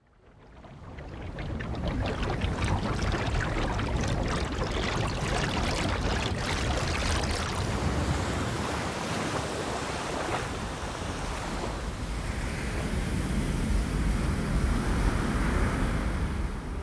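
Sea surf: waves breaking and washing in a steady rush with a deep rumble. It fades in from silence over the first couple of seconds.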